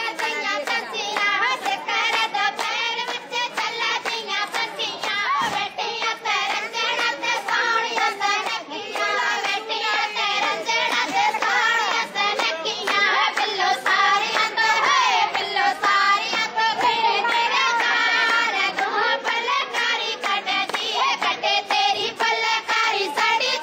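High women's voices singing together, over steady rhythmic hand clapping.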